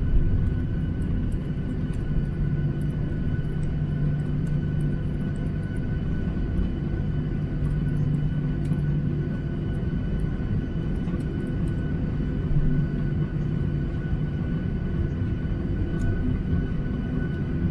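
Boeing 737-800's CFM56-7B jet engines running at taxi power, heard from inside the cabin: a steady low hum with a couple of thin, steady whining tones above it.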